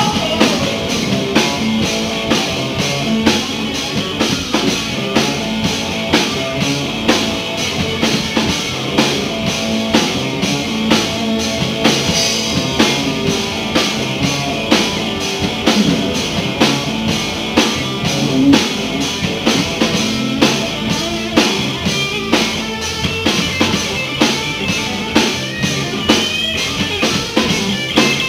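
A live blues-rock band playing: a drum kit keeps a steady beat of about two hits a second under electric guitar and bass.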